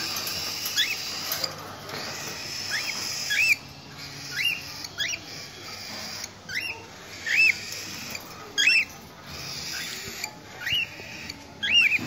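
Cockatiels calling: a run of short, shrill chirps that rise and fall in pitch, about one a second, over a steady hiss.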